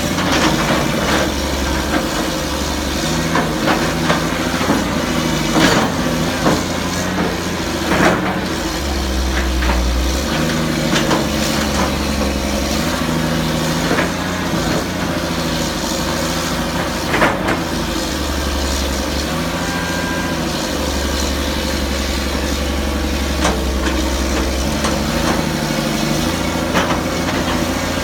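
CAT excavator's diesel engine running while it digs, its note stepping up and down every few seconds as the hydraulics take load, with scattered sharp knocks and clanks. The hydraulics are working normally after repair.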